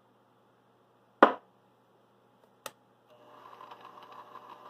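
Two sharp clicks about a second and a half apart, the first loud. About three seconds in, a bench mini mill's spindle motor starts and its hum grows gradually louder.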